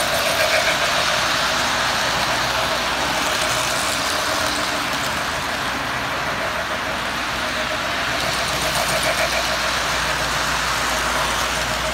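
Model steam locomotive and its train running on the layout's track: a steady whirring rumble of the motor and wheels on the rails.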